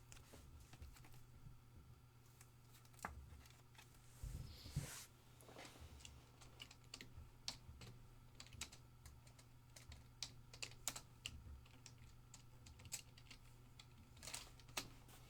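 Faint typing on a computer keyboard: irregular key clicks, with a brief rustle about four to five seconds in.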